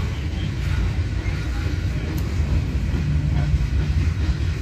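Freight train's boxcars rolling past, a steady low rumble of wheels on rail.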